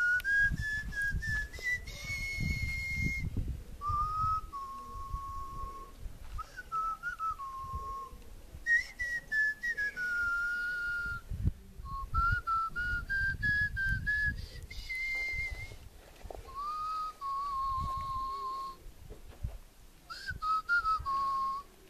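A person whistling a tune: one clear, pure note moving through rising and falling phrases, the same melody whistled twice through. A low rumble runs underneath.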